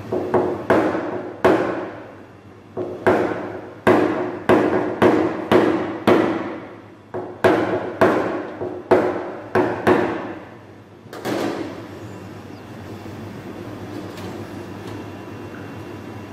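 Light hammer taps on a car body panel during paintless hail-dent repair: about twenty sharp, briefly ringing taps at an uneven pace, stopping about eleven seconds in. A steady low hum runs underneath.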